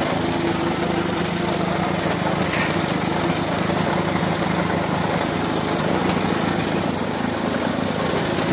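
Small stationary engine running steadily, driving a belt-driven tomato washing and sizing machine whose rollers and conveyor turn with it.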